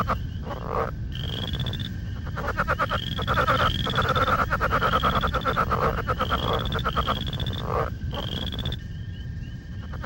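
Southern leopard frogs calling: rapid pulsed croaks in runs of about a second, one after another. Behind them a short rising high peep repeats about once a second.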